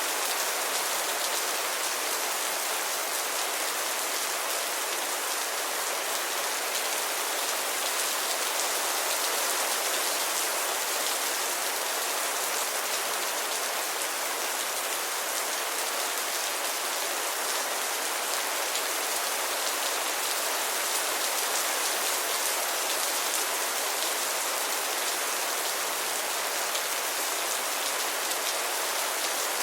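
Steady rainfall, a constant hiss of many drops pattering on a surface, even in level throughout.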